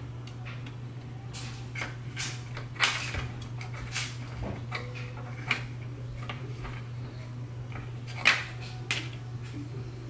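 Small clicks and scrapes of handling as a plastic four-pin fan plug is worked off its header on a circuit board, the sharpest clicks about three seconds in and again near eight seconds, over a steady low hum.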